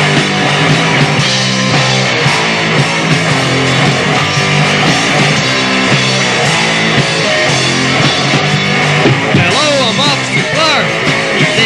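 Hardcore punk band playing fast: distorted electric guitar, bass guitar and drums, with no vocals, in a rough basement recording. From about nine seconds in, high notes slide up and down over the band.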